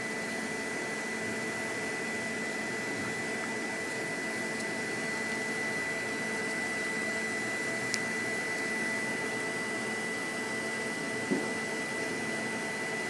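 A steady mechanical whir and hiss from equipment running close by, with a faint constant high tone and a single small tick about eight seconds in.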